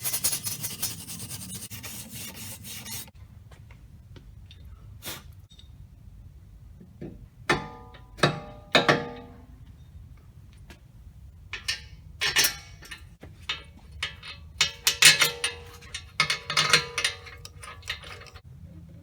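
Hand wire brush scrubbing rust off the corroded hub mounting surface, a fast rasping scratch for about three seconds. After it come scattered metallic clanks and clinks of parts and tools, some of them ringing briefly, in two bunches in the middle and toward the end.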